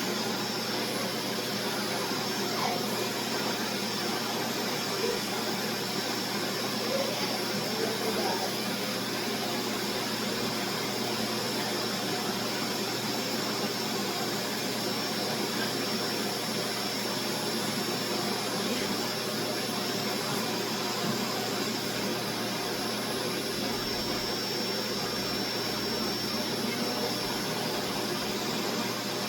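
Vacuum cleaner running steadily: a constant rushing noise with a thin high whine over it.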